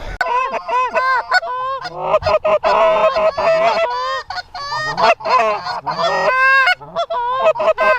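Many Canada goose honks and clucks overlapping in a loud, rapid, continuous chorus, several calls at once.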